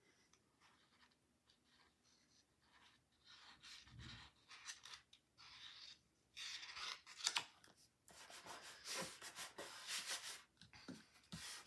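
Cardstock rubbing and rustling under hands as glued paper pieces are handled and pressed flat, in faint, irregular scraping strokes that grow louder in the second half.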